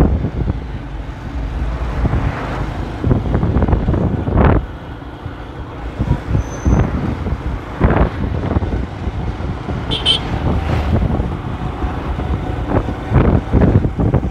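Street traffic noise with wind buffeting the microphone, a heavy low rumble broken by scattered knocks, and a brief high chirp about ten seconds in.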